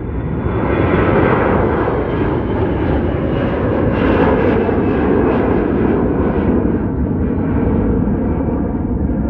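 Delta twin-engine narrow-body jet airliner climbing out just after takeoff, its engines at takeoff power. A loud, steady rushing jet noise builds over the first second and holds, with a crackling edge around the middle.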